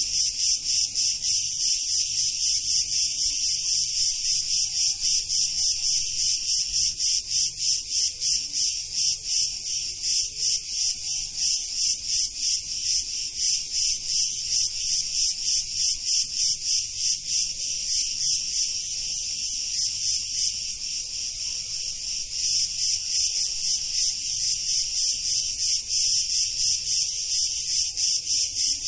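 Cicadas singing in a loud, dense chorus that pulses rapidly, several times a second. The chorus turns briefly softer and steadier about two-thirds of the way through.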